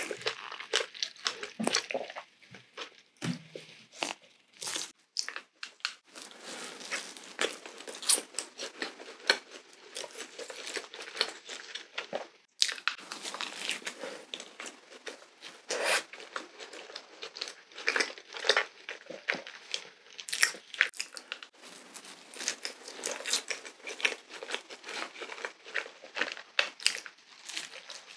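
Close-miked eating: bites into a glazed doughnut topped with whipped cream and a strawberry, then chewing, with many short, irregular mouth clicks.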